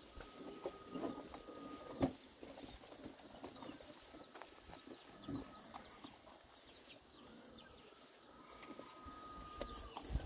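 Faint outdoor ambience of birds calling, with many short high chirps and a faint steady high tone that comes and goes. A sharp knock sounds about two seconds in.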